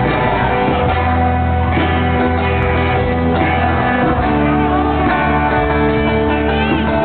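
Live band music with guitar, a steady run of held chords and notes with a few sliding pitches near the end.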